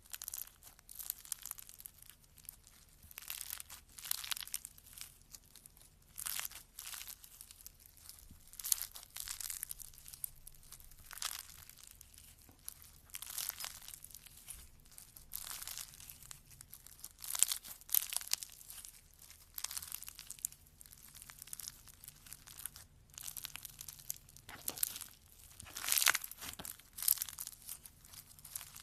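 Crunchy slime being worked, giving irregular bursts of crisp crackling and crunching, one every second or two.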